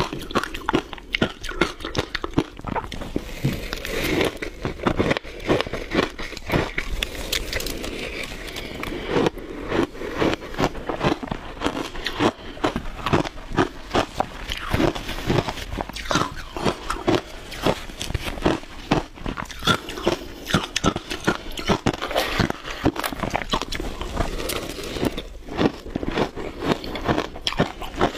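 Close-up crunching and chewing of mouthfuls of shaved ice: a dense, irregular run of sharp crunches.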